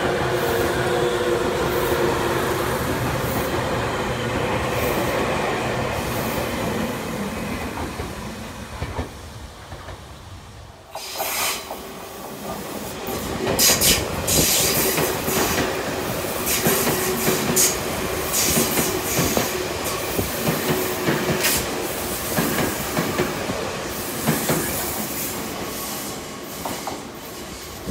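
Tobu 100 series Spacia electric limited-express trains passing at close range. The first runs with a steady whine that fades away over about ten seconds. After a cut, a second passes with wheels clacking irregularly over the rail joints.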